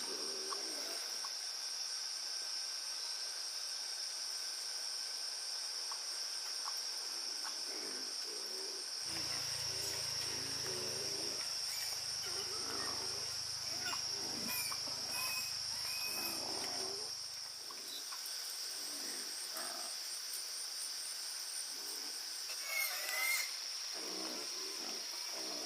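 Steady insect chorus, a constant high-pitched trill, with scattered short animal or bird calls over it and a slightly louder call near the end.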